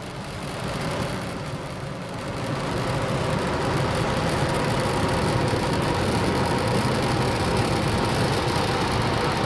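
Engine noise from a Falcon 9's nine first-stage engines during ascent: a steady, rough rumble with no distinct tones. It swells about two to three seconds in and then holds.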